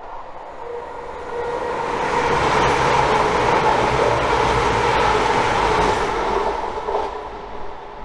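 Class 222 Meridian diesel multiple unit passing through a station at speed. Its engines and wheels on the rails grow loud over the first two seconds or so, hold for several seconds, then fade as it runs away.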